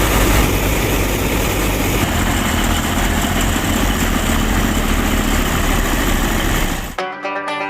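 A machine running steadily with a dense mechanical whir and low hum, cut off abruptly about seven seconds in as plucked-string music begins.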